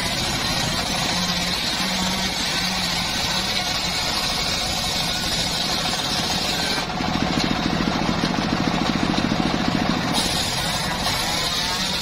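Homemade engine-driven circular sawmill running steadily as wooden boards are fed through its large blade: an engine hum under the saw's hiss. For about three seconds in the middle the sound grows louder and deeper.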